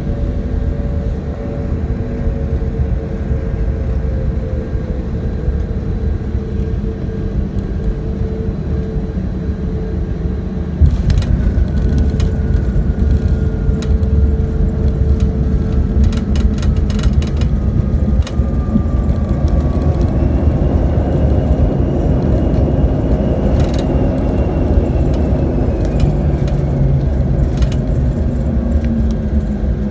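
Jet airliner's cabin during the landing roll: a steady deep engine and runway rumble, with the engines' whine sliding down in pitch. About eleven seconds in the noise jumps louder and the cabin rattles and clicks for several seconds. The engine tones then rise and fall again as the aircraft slows.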